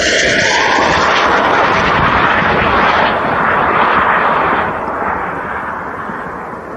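Loud rushing roar of a fired rocket in flight. It fades and grows duller from about three seconds in as the rocket flies off.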